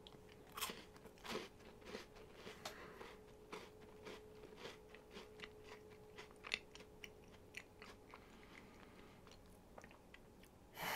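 A person chewing a mouthful of crisp biscuit sandwiched with cream and milk chocolate: a run of faint crunches, close together at first and thinning out over the last few seconds.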